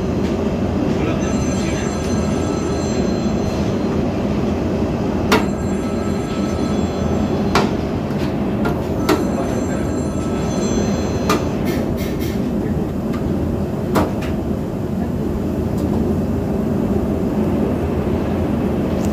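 A metal spatula scraping and clinking against a steel frying pan as a thick mixture is stirred, with about six sharp clinks and brief thin squeals of metal on metal, over a loud steady low background noise.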